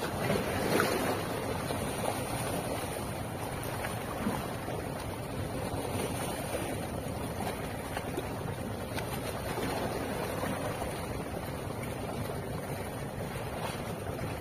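Small sea waves washing and splashing over low shoreline rocks, with wind on the microphone; a louder splash comes about a second in.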